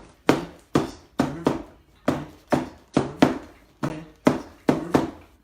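A rhythmic run of sharp percussive hits, about two a second, each followed by a short low pitched tone that dies away.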